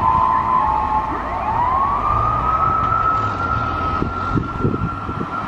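Fire truck siren sounding a two-tone hi-lo pattern, then about a second in switching to a tone that rises and holds steady, fading slowly as the truck drives away, over a low engine and traffic rumble.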